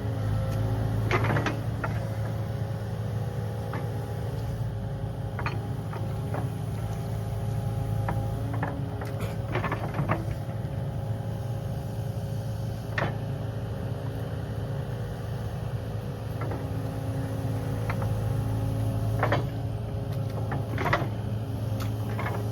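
Kubota KX080 excavator's diesel engine running steadily under load, with several short knocks and clanks from the bucket and arm as it digs.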